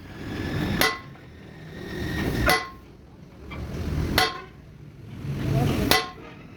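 Heavy hammer blows on a steel truck trunnion shaft assembly, four evenly paced strikes about 1.7 seconds apart, each ringing metallically. Each strike is preceded by a short swelling rush of noise.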